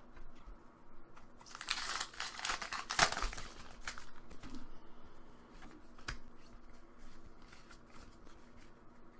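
Foil Pokémon booster pack wrapper being opened, with a dense stretch of tearing and crinkling about two seconds in, then light rustles and clicks of the wrapper and cards being handled.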